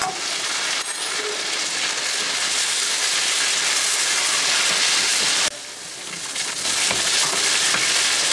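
Chicken pieces sizzling in hot oil in a frying pan as they are turned with a spatula. The sizzle is a steady hiss that drops suddenly about two-thirds of the way through, then builds back up.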